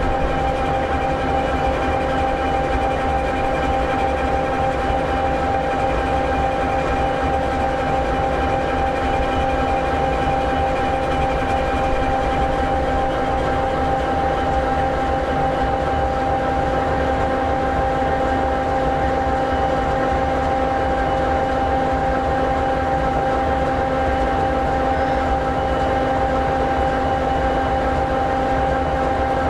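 EMD 16-710G3B sixteen-cylinder two-stroke diesel engine of an SD60E locomotive idling steadily: a low rumble with a steady whine of several held tones. One of the higher tones fades out about twelve seconds in.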